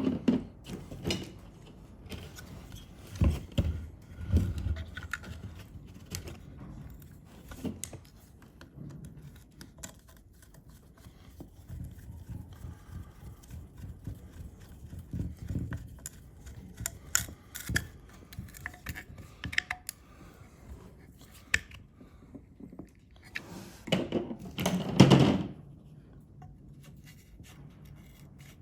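Irregular clicks, taps and knocks of small metal parts and hand tools being handled during chainsaw reassembly, with a louder run of knocks about three-quarters of the way through.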